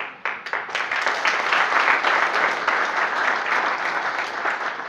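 Audience of students applauding: dense hand-clapping that starts abruptly, swells over the first second and tapers off near the end.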